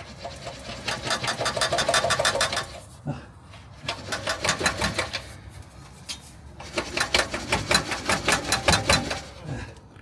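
Rapid, evenly spaced mechanical clicking in three runs of one to three seconds each: a ratchet wrench being worked on a bolt under the car.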